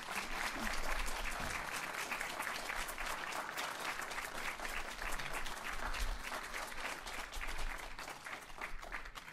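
Audience applauding, with many hands clapping at once.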